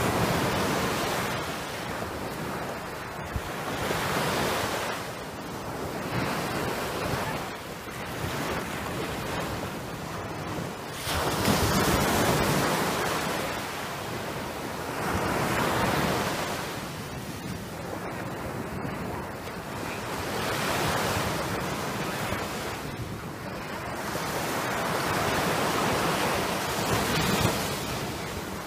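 Small waves breaking and washing up a sandy beach, the surf swelling and fading every four to five seconds.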